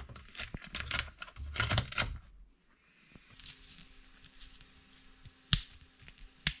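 Flexible TPU 3D-printed pop-it peeled off the printer's bed, a crackling, tearing sound for about two seconds. Near the end, two sharp pops about a second apart as its bubbles are pressed through.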